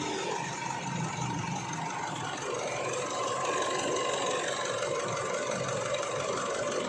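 Isuzu D-Max 4JK1 four-cylinder common-rail diesel idling steadily with a misfire. The mechanic puts the misfire down to a possibly leaking injector that is slow to build up pressure.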